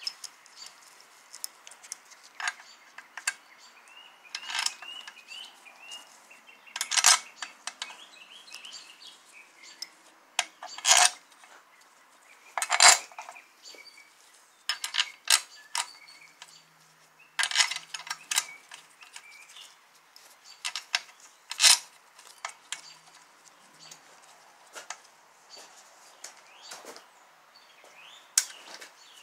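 Steel bolts clinking against each other and against the metal balance shaft housing of a Toyota 2AZ-FE engine as they are set into their holes by hand: sharp metallic clinks and taps at irregular intervals, a dozen or so, with quiet gaps between.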